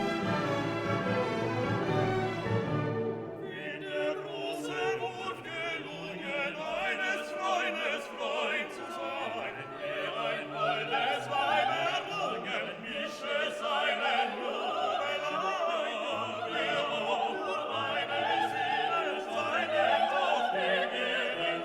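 Background classical music with an operatic singing voice and orchestra; the sound changes character about three seconds in.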